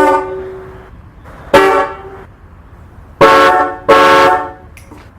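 Four-horn set off a 1984 Cadillac Eldorado, its horns tuned to A, C, D and F, sounding together as one chord in short honks: two single honks, then two close together near the end.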